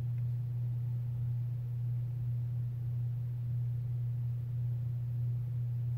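A steady low-pitched hum, one unchanging tone and nothing else.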